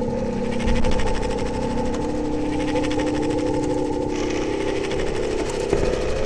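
Noisy electronic drone from a Eurorack modular synthesizer layered with iPad found sound: several sustained low tones held together under a crackling noise texture, one pitch sliding slowly upward, with a brief low thump about a second in.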